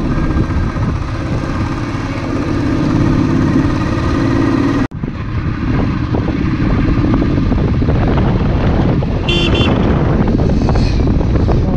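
Royal Enfield motorcycle engine running under way, with wind and road noise. The sound drops out for an instant midway, and a horn toots briefly near the end.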